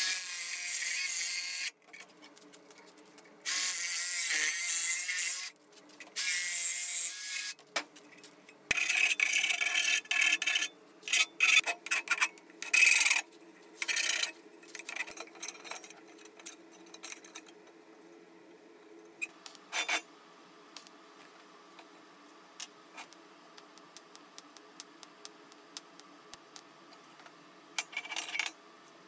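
A small handheld electric sheet-metal cutter buzzes through thin steel sheet in three short runs, then a hand file rasps along the cut edge in quick, irregular strokes. After that only light clicks of the steel pieces being handled.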